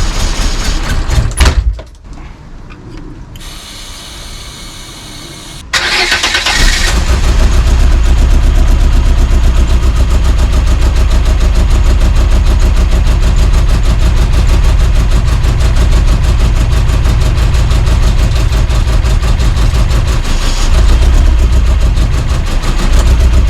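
Volvo 480 engine running, then cutting out about two seconds in; a few seconds later it is cranked and starts again, and then runs steadily, rising briefly near the end. The car has a fault where the engine dies almost immediately after starting.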